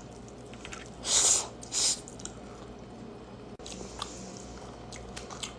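A person eating chicken wings close to the microphone: wet chewing and biting, with two short, loud squishy mouth sounds about a second in and just under two seconds in.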